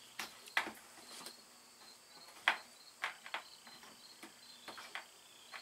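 Crickets chirping steadily in the background, with scattered light clicks and knocks from hand work under the van, the sharpest about two and a half seconds in.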